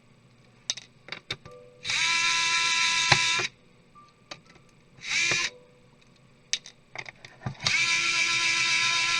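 Electric screwdriver motor running in three short bursts as it drives screws out of a laptop. The shorter middle burst drops in pitch as the motor stops, and there are small clicks of handling between bursts.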